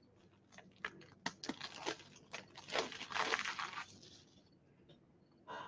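Plastic card holders being handled and sorted: a string of clicks and taps, then about a second of crinkling rustle, and one more short rustle near the end.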